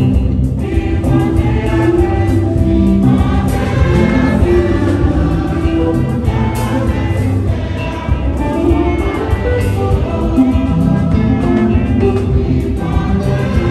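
A church choir singing a hymn together, voices in several parts.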